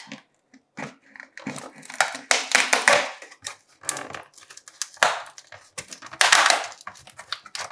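Corrugated cardboard box being torn open at its tear strip by hand, in several uneven spells of tearing and rubbing, the longest about two to three seconds in; the strip is hard to open.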